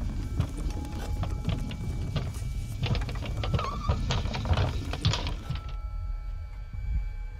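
Rapid, irregular mechanical clicking and rattling over a steady low drone. A short squeak comes about three and a half seconds in, and the clicking stops about five and a half seconds in.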